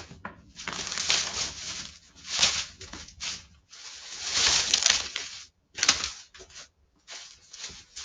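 AI-generated sound-effect samples playing one after another: noisy, irregular sounds with short breaks between them, about three and a half, five and a half and seven seconds in.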